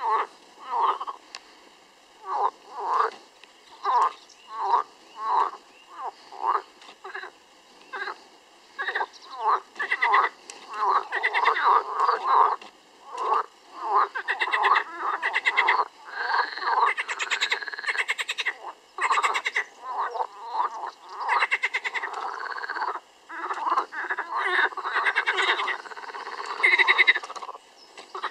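A chorus of green pond frogs calling. At first there are separate short croaks, about one every half second; from about nine seconds in, more frogs join with overlapping rattling calls, some of which sound like a snigger.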